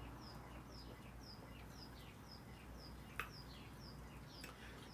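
A bird chirping faintly and steadily, short falling chirps about two a second, with a single sharp click about three seconds in.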